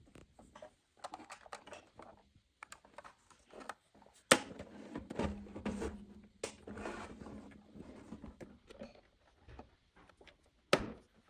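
Small plastic toy pieces and packaging handled close to the microphone: scattered light clicks and taps with rustling between them, and a few sharper knocks, the loudest about four seconds in and near the end.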